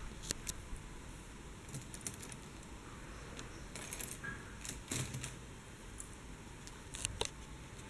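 Scattered faint light clicks and taps, a few of them in quick pairs, over a steady low hiss.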